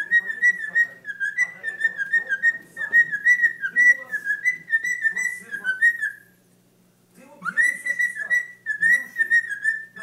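Cockatiel whistling its song: a quick run of short whistled notes hovering around one pitch, in two phrases with a pause of about a second between them.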